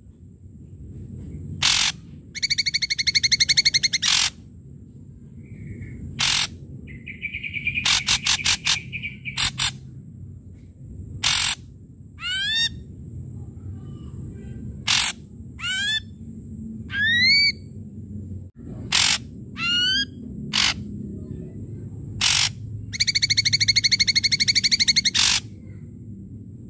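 Ashy drongo singing a varied song: short harsh notes, long rapid rattling trains of notes near the start and near the end, and several short rising whistles in between.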